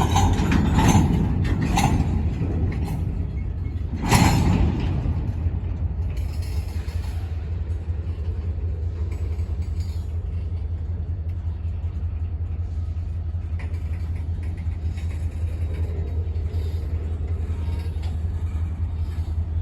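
Diesel locomotive engine rumbling steadily at idle, with a few short knocks near the start and one loud sudden bang about four seconds in.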